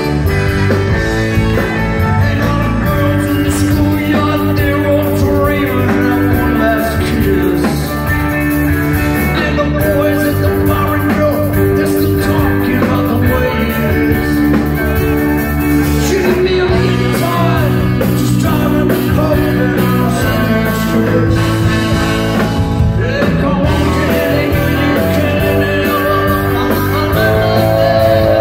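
Live rock band playing loudly, a tenor saxophone taking a solo of long held notes over electric guitar, bass and drums.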